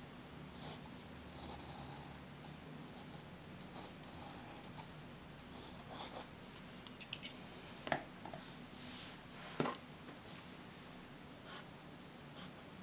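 Pen and highlighter writing on paper, with soft scratchy strokes, and a few sharp clicks and taps about halfway through as pens are picked up and put down on the desk. A faint steady low hum of room tone lies underneath.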